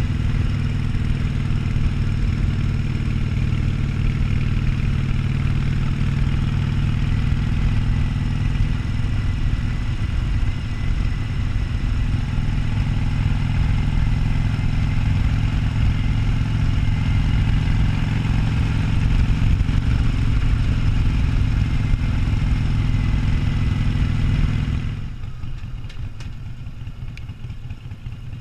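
Harley-Davidson Sportster 1200's air-cooled V-twin running steadily on the road. About 25 seconds in, it drops suddenly to a quieter, lower sound.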